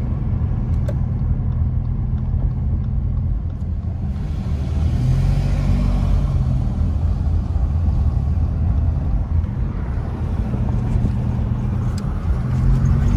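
Car engine and tyre noise heard from inside the cabin while driving, a steady low rumble. The engine note rises as the car picks up speed about four seconds in, and again near the end.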